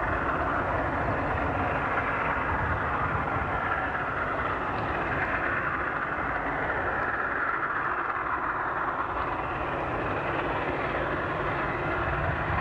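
Steam locomotive working a train, throwing heavy smoke: a steady, dense rush of exhaust and rolling rail noise.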